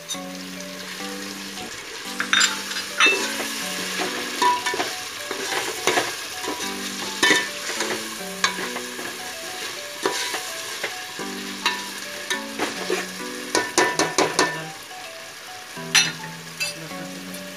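A slotted steel spatula stirring masala frying in oil in a metal pot: a steady sizzle broken by frequent sharp scrapes and knocks of the spatula against the pot, most dense around the middle and again near the end. Soft background music with a repeating melody plays underneath.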